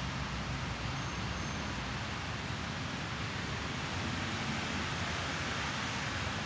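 Steady background noise with a low rumble and no distinct event.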